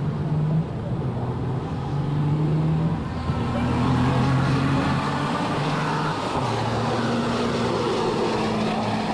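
H.O. scale slot-car tractor-trailers running on a drag strip. A steady low hum shifts pitch in steps, and a higher whirring builds from about three seconds in.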